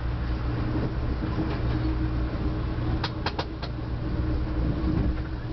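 Amtrak passenger train running, heard from inside the coach: a steady low rumble with a faint even hum. About three seconds in there is a quick run of four sharp clicks.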